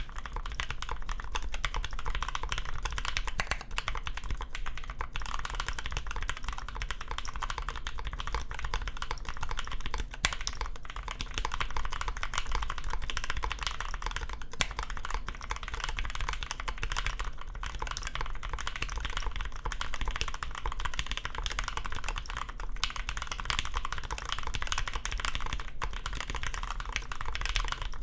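Steady, fast typing on a Swiftrax Equator mechanical keyboard with a stacked acrylic case and plate, lubed and filmed milky-top Gateron Yellow linear switches and CRP keycaps, giving a deep, full sound. The typing starts abruptly and runs on as a dense stream of keystrokes.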